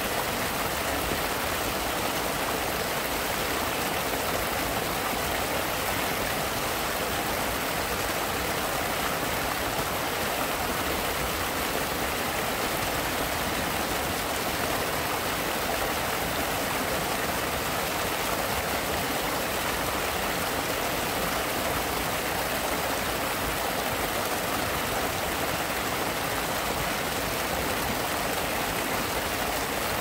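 Water of a natural stream running steadily, an even hiss that never pauses or changes.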